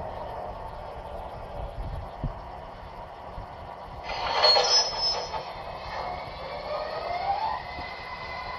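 MTH O-gauge New York subway model train's onboard sound system playing back under DCS control: a loud burst with a high squeal about four seconds in, then a rising electric-motor whine that levels off into a steady tone near the end.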